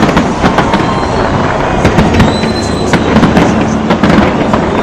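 Fireworks display: a rapid, continuous run of bangs and crackling shell bursts over a steady low rumble, with a few faint whistles.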